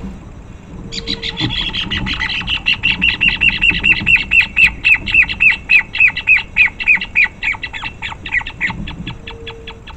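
Pale-legged horneros calling in a squabble: a long run of loud, sharp calls at about five a second. The run starts about a second in and fades near the end.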